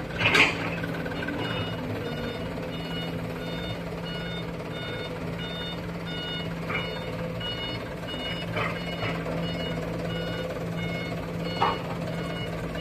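A truck's reversing alarm sounds a repeating pattern of short beeps at a few different pitches, about two a second, over the steady running of a Mitsubishi Fuso Colt Diesel dump truck's diesel engine. There is a sharp knock about half a second in, and a few fainter knocks later.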